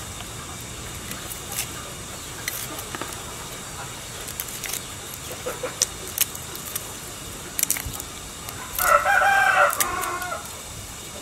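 A rooster crows once, loud, starting a little under nine seconds in and lasting about a second and a half. Scattered small clicks and crackles come from garlic cloves being peeled by hand.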